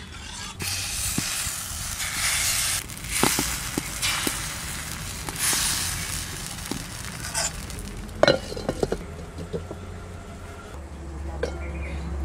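Rice batter sizzling as it is ladled into the cups of a hot clay chitoi pitha mould over a wood fire. The hiss swells and fades over the first several seconds, then a few sharp knocks come about eight seconds in.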